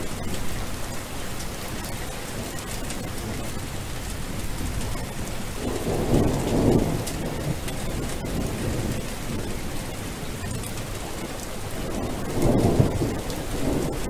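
Steady rain falling, with two low rolls of thunder, one about six seconds in and another near the end.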